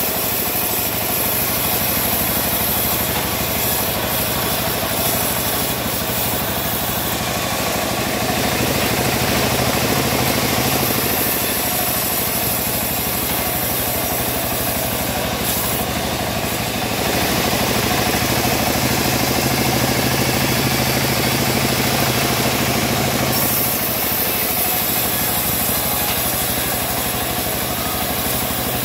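Homemade bandsaw mill sawing through a teak log: the mill's motor runs steadily while the blade cuts. The hissing of the cut grows brighter and fades in long stretches.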